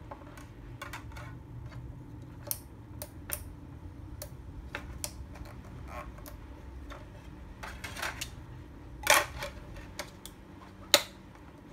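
Plastic CDs being stacked onto the spindle of an open portable DVD player's disc tray: irregular clicks and clacks of disc on disc, the loudest a clatter about nine seconds in. A sharp snap near the end as the player's lid is shut.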